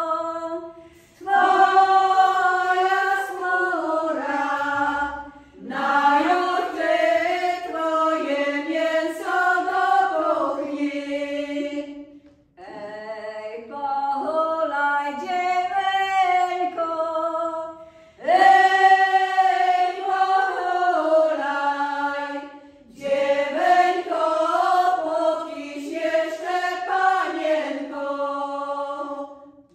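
Women's vocal group singing an old Polish folk song a cappella, in phrases of about five seconds with short breaths between them.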